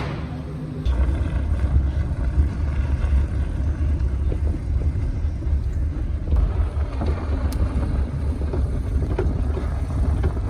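Petrol Mahindra Thar on the move: a steady low engine and road rumble that grows louder about a second in, then holds.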